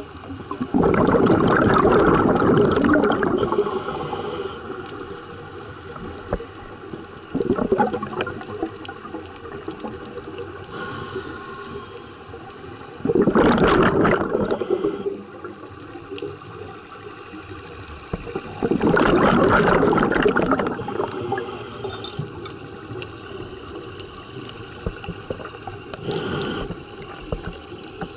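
Scuba diver's exhaled breath bubbling out of the regulator, heard underwater through the camera housing: loud bubbling bursts of two to three seconds come about every five to six seconds, with a quieter hiss between.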